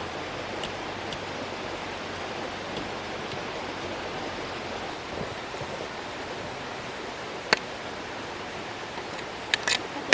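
Steady rushing noise, with a sharp click about seven and a half seconds in and a few quick clicks near the end.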